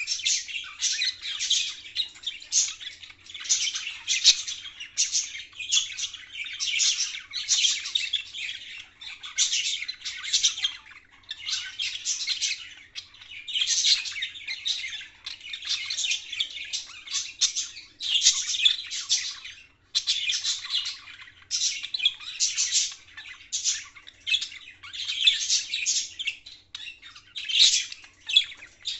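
Pet budgerigar chatter: a near-continuous stream of high chirps, squawks and warbling, with only brief pauses.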